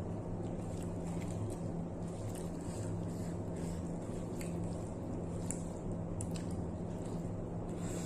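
A person eating chicken liver with their fingers: close-up wet chewing and squishy mouth clicks over a steady low hum.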